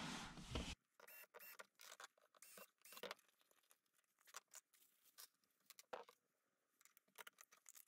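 Near silence with a few faint, scattered clicks and taps from a plastic kayak hatch lid and small bolts and washers being handled on a workbench. A low background noise cuts off abruptly under a second in.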